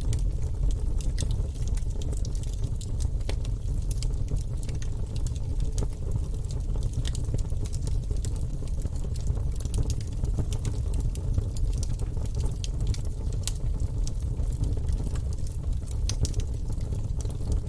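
Wood logs burning in a fireplace, crackling with many small, sharp pops scattered irregularly over a steady low rumble.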